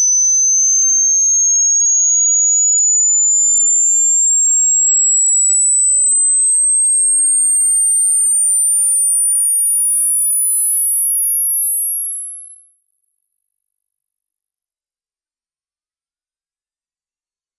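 Electronic pure sine test tone for a hearing test, sweeping slowly and steadily upward in small steps from a high whistle to a very high pitch near the top of human hearing, at a constant loudness.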